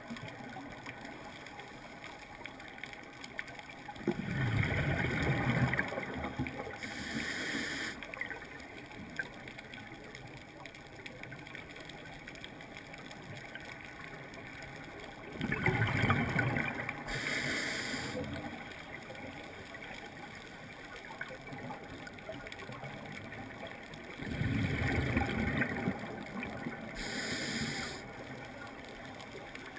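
Scuba diver's regulator breathing underwater: about every ten seconds an exhaled breath comes out as a loud burst of bubbles lasting about two seconds. Each burst is followed shortly by a short high hiss of the regulator as the next breath is drawn, with a faint steady sea hiss between breaths.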